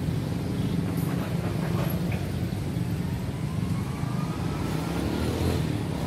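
Motor vehicle engines running steadily with a low rumble, and a faint rising whine in the middle.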